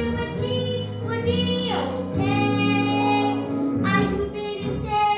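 A boy singing a musical-theatre song over instrumental accompaniment, with a long downward slide in pitch about two seconds in.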